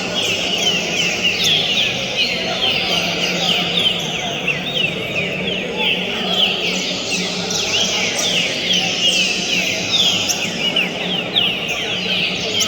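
Many green-winged saltators (trinca-ferro) singing at once, their quick falling whistled notes overlapping without a break. Underneath are a murmur of voices and a steady low hum.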